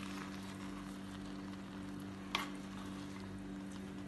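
A spoon stirring cooked biryani rice in a clay pot, a faint scraping with one sharp tap of the spoon about two and a half seconds in. A steady low hum runs underneath.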